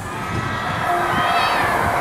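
Crowd of visitors chattering, with a high child's voice rising and falling about a second and a half in.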